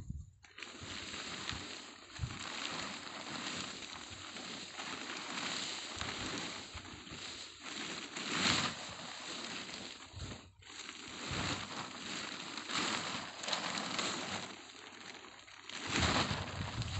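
Large plastic tarpaulins rustling and crinkling as they are pulled and folded. The rustle is continuous and hissy, with louder swells about eight seconds in and again near the end.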